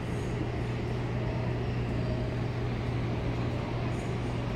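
Steady drone of large ship machinery, a constant low hum over an even noise bed.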